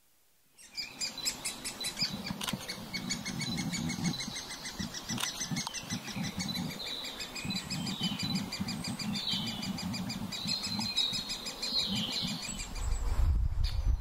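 Great spotted woodpeckers calling: a dense, rapid chatter of high repeated notes that starts abruptly just after the start and keeps going throughout, with a few short falling calls mixed in. A low rumble joins near the end.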